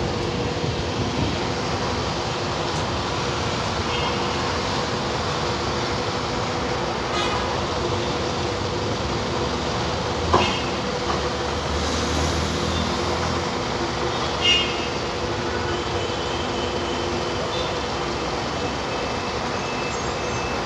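Electric trams at a street stop: a steady running hum with street noise. There is a sharp knock about ten seconds in and another short, ringing sound about four seconds later.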